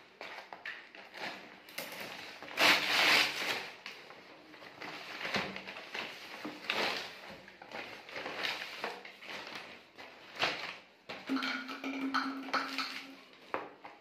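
Kraft-paper mailer bag crinkling and rustling in irregular bursts as it is handled and pulled open, loudest about three seconds in.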